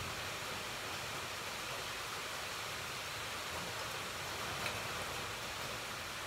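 Steady, even hiss of background room noise, with a single faint click about four and a half seconds in.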